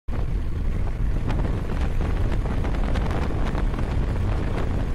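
Wind rushing over the microphone of a motorcycle rider moving at road speed, a steady low rumble with the ride's engine and road noise underneath.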